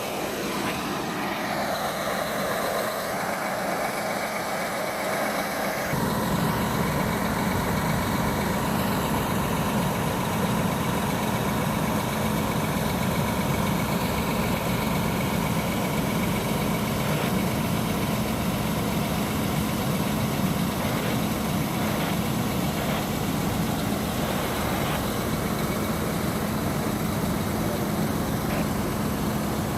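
Heavy truck engine, likely a fire apparatus diesel, idling steadily with a low, even hum. It sets in sharply about six seconds in.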